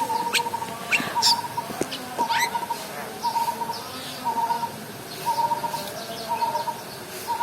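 Aviary birds calling: one bird repeats a short, even note about once a second, while others give several quick, sharp rising chirps in the first couple of seconds.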